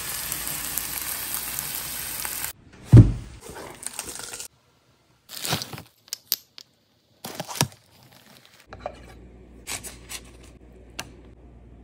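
Steak sizzling in a hot pan for about two and a half seconds, cut off abruptly. Then comes a heavy thump, the loudest sound. After it, short spells of plastic packaging crinkling and tearing, and a few light clicks and taps as the wagyu and seasonings are unpacked.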